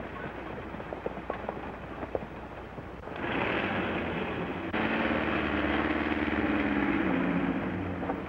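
Horses galloping and an early motor car driving on a dirt track, heard through the hiss of an old film soundtrack. Scattered sharp clicks at first; the sound jumps louder about three seconds in and again just before five seconds in, where a steady pitched drone sets in.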